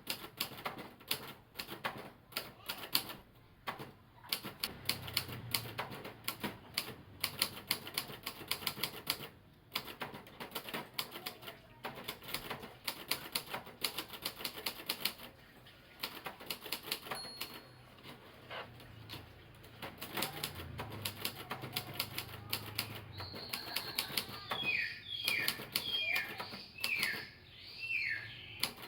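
Royal TA 240 typewriter being typed on: rapid runs of key strikes clicking, broken by brief pauses. Near the end, a handful of short, high, falling chirps sound behind the typing.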